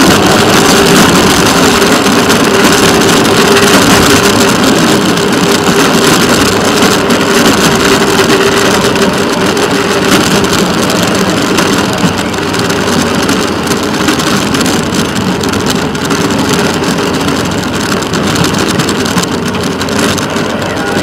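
Rail motorcar (track speeder) engine running steadily as the car travels along the track, a constant engine drone over rolling noise.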